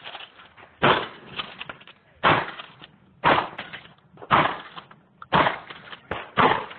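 Mossberg 590 pump-action shotgun fired six times in a rapid string, about a second apart, with #6 lead shot. Shorter, fainter clacks come between the shots.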